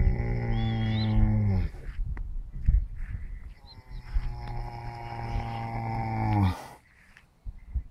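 A sleeping horse snoring loudly in long, drawn-out pitched snores. One dies away about a second and a half in, and a second runs from about three and a half to six and a half seconds in; each drops in pitch as it ends.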